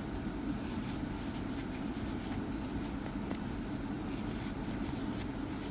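Steady low background hum, with faint soft ticks and rustles of a crochet hook and yarn being worked into double crochet stitches.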